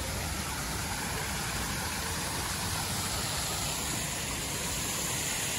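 Steady rushing noise of surf and wind.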